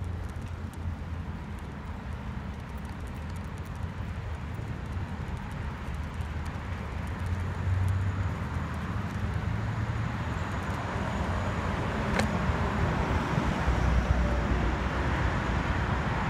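Road traffic noise: a steady hum of passing cars that grows gradually louder, with a brief sharp tick about twelve seconds in.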